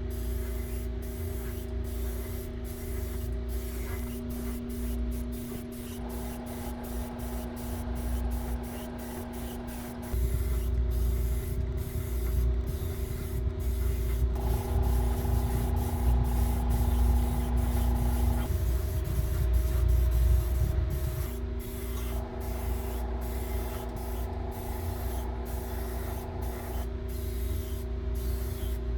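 Airbrush spraying paint: a continuous hiss of air over the low rumble of the compressor running.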